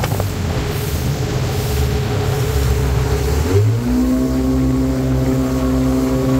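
The two-cylinder engine of an Ultranautics JetStar 1250 jet boat running under way, first under a rushing noise of wind and water. About three and a half seconds in, the engine's pitch rises briefly and then holds a steady drone.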